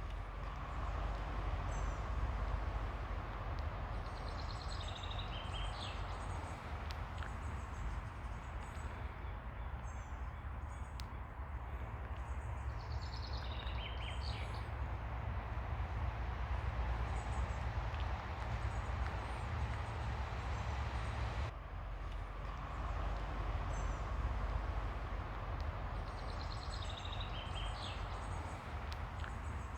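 Steady wash of ocean surf with a heavy low rumble. Over it a bird calls with short high chirps, three times breaking into a longer chirping phrase.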